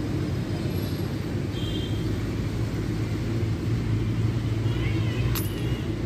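Steady low rumble of road traffic, with a few brief faint high chirps and one sharp click about five seconds in.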